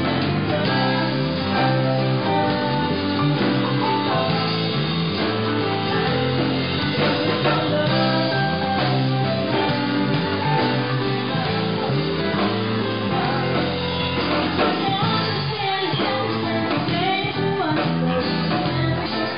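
A small band playing a pop song live, with acoustic guitar strummed, keyboard and a woman singing.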